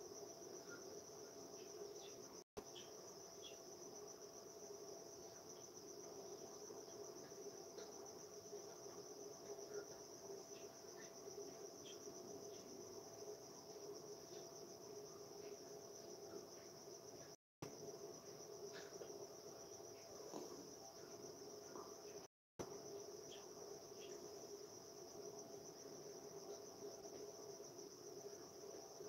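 Faint, steady high-pitched insect-like chirring with a low hum beneath it. The sound cuts out completely for a moment three times.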